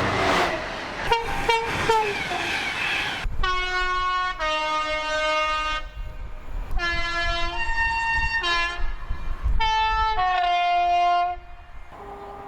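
A train rushing past with wheel-on-rail noise and short horn blasts, then a locomotive horn sounding a long run of notes at several different pitches, one after another like a tune. The horn stops abruptly about eleven seconds in.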